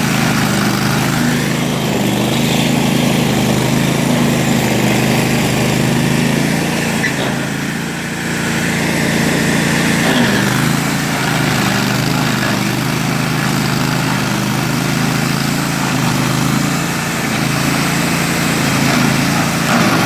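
Bandit ZT1844 stump grinder running steadily on its 1,000 cc, 38-horsepower Kohler Command V-twin engine.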